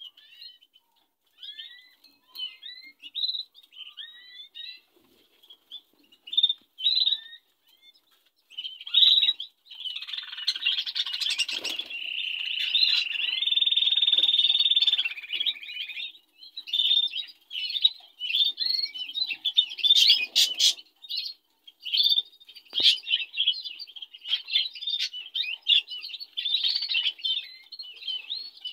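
Several budgerigars chirping and warbling in a cage: scattered short chirps at first, then from about ten seconds in a dense, louder run of chatter that carries on as rapid warbling.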